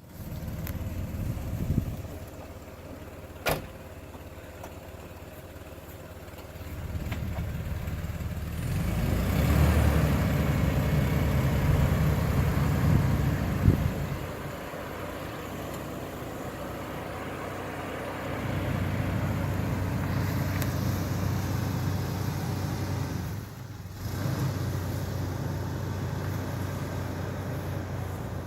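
Boat engine running at low speed, getting louder for stretches as the throttle is opened and eased back while the boat is manoeuvred into its berth. There is one sharp click about three and a half seconds in.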